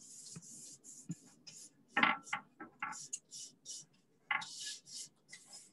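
Paintbrush strokes laying chalk paint onto a piece: quick dry swishes of the bristles, several a second in short runs, with a few light knocks about two seconds in and again a little past four seconds.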